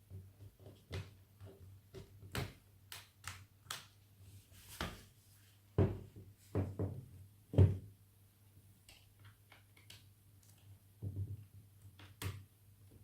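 Small Phillips screwdriver and hands working at a laptop's screen-mounting screw and plastic casing: scattered light clicks and taps, with a few louder knocks just past halfway. The screwdriver is struggling to get into the screw, whose head is worn.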